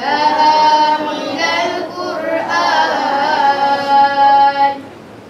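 A boy singing solo in long, held, ornamented notes with no clear words, stopping near the end.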